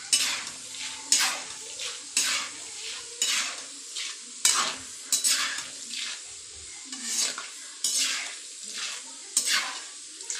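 A steel slotted spoon stirring and scraping against a thick metal kadai, roughly once a second, while roasted chana dal (putnala pappu) sizzles in hot oil.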